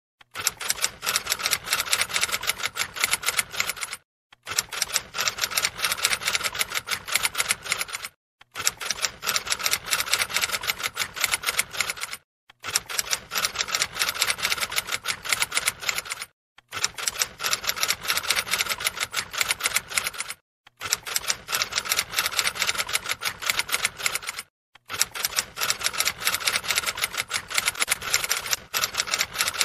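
Typing sound effect: rapid clicking keystrokes in stretches of about four seconds, each broken by a short pause, like a repeating loop.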